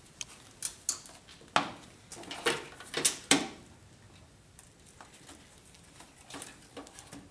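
Irregular plastic clicks and knocks from handling an HID ballast and zip ties against a plastic air filter housing, the sharpest in the first three seconds or so and fainter, scattered ticks after.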